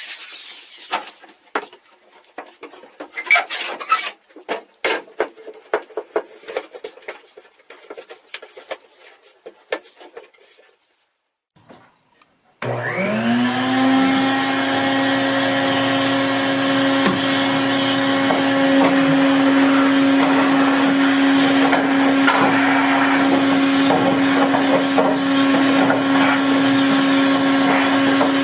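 Scattered knocks and clicks of handling work, then about halfway through an electric power tool's motor starts, spins up quickly and runs at a steady pitch.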